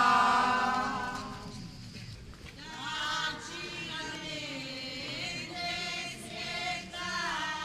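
A group of men and women singing a devotional hymn to Saint Anne. A loud held note dies away about a second and a half in, and quieter singing follows.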